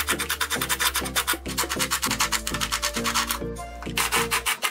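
A Ryobi cordless drill with a step drill bit cutting a 3/4-inch hole through the sheet-metal trunk lid, heard as a fast, rasping chatter that pauses briefly a little after three seconds in. Background music plays under it.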